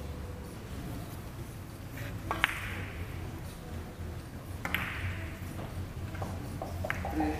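Sharp clicks of billiard balls during a three-cushion carom shot: a loud click about two and a half seconds in, another about two seconds later, then a few lighter knocks near the end.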